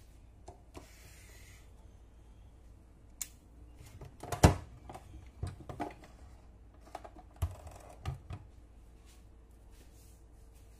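Handling clatter of an electric sandwich maker: scattered plastic clicks and knocks as it is moved and its lid is lifted open, with one louder knock and thud about four and a half seconds in.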